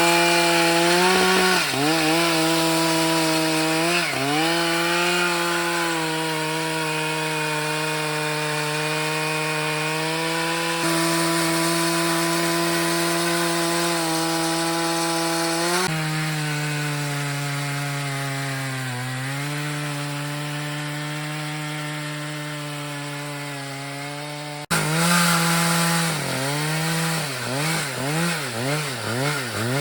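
Stihl MS 881 chainsaw running at high revs under load, ripping lengthwise through a maple log in a chainsaw mill. The engine note wavers up and down at first, then holds steady and sags slowly in pitch. It breaks off abruptly about 25 seconds in and comes back wavering.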